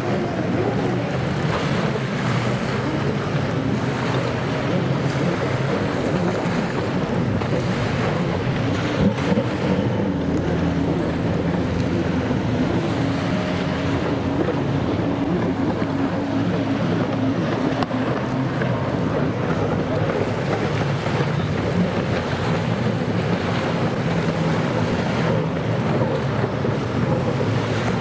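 Racing personal watercraft (jet skis) running out on the course, several engine notes rising and falling in pitch as they race. Wind buffets the microphone over the wash of the waves.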